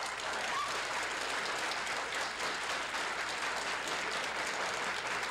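A large seated crowd applauding, dense and steady.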